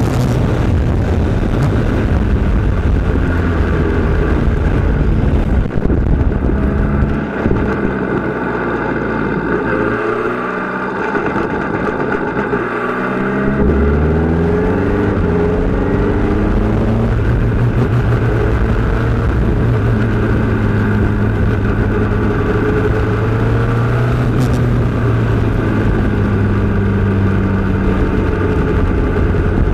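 Formula Renault 2.0 single-seater's four-cylinder racing engine heard onboard, running at high revs. The revs drop about seven seconds in, then climb again in several quick rises around thirteen seconds as it accelerates up through the gears, and hold high to the end.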